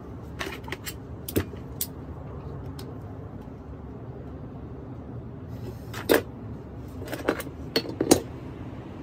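Sharp metallic clicks and clinks of locking pliers and loose parts being handled on an old electric fan motor: a few light ones near the start, then a louder cluster about six to eight seconds in. A steady low rumble runs underneath.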